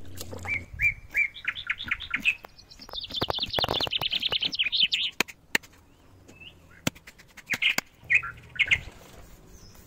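A songbird calling: a string of short high whistled notes stepping up in pitch, then a fast rapid run of repeated notes, and a few more notes near the end. A couple of sharp taps, from a knife working on a wooden chopping stump, fall between the bird's notes.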